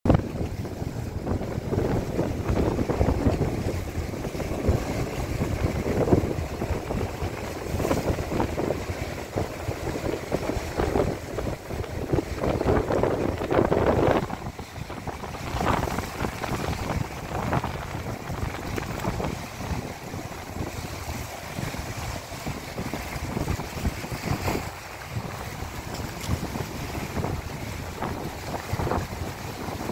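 Wind buffeting the microphone over the wash of rough, post-typhoon sea surging against a concrete seawall. The gusts are heaviest in the first half and ease off about halfway through.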